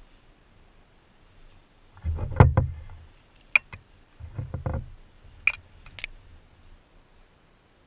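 Bursts of knocks and clicks from handling the fly rod and reel in a small boat while playing a hooked carp. There are two clusters of quick clicks with dull thumps, then a few sharp single clicks.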